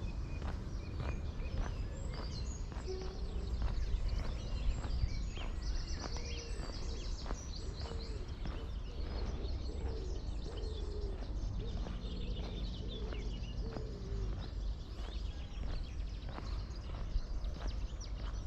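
Footsteps at a steady walking pace, about two a second, with birds chirping and trilling and a low steady rumble underneath.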